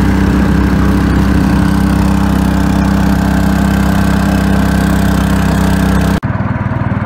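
Small wooden river boat's engine running steadily while the boat moves under power. About six seconds in, the sound cuts off abruptly and a lower, quickly pulsing engine note takes over.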